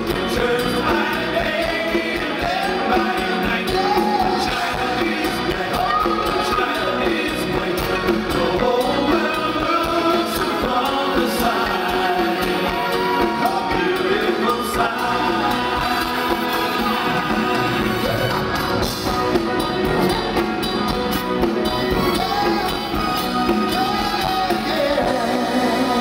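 A live rock band playing, with electric guitar and drums under several singers' vocals, sung without a break.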